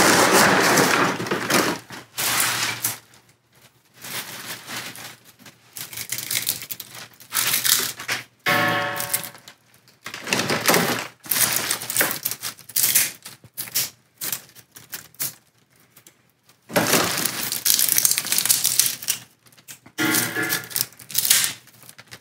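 Clear plastic bag crinkling and dried white sage leaves and stems crackling as hands rummage through them, in irregular bursts of rustling with short pauses between.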